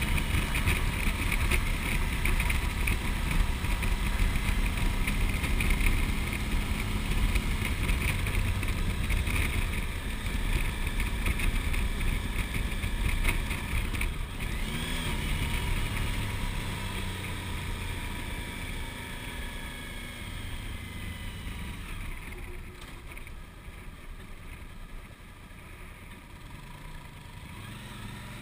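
Suzuki V-Strom's V-twin engine and wind rush heard from a camera mounted on the moving motorcycle. The sound is a steady, dense, deep rumble that grows quieter through the second half as the bike eases off.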